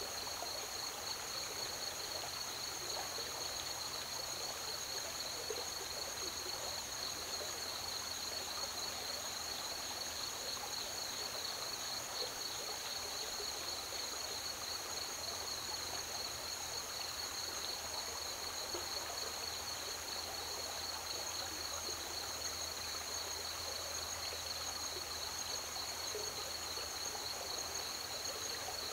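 A steady chorus of crickets trilling at two high pitches, over the continuous rush of flowing river water.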